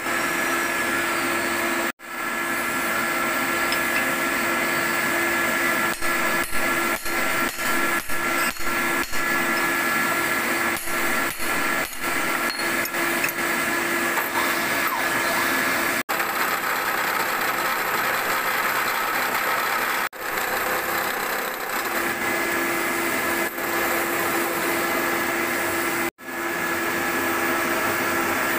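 Milling machine running with a steady motor hum and whine, no cutting heard. The sound drops out briefly several times, with a run of quick breaks in the middle.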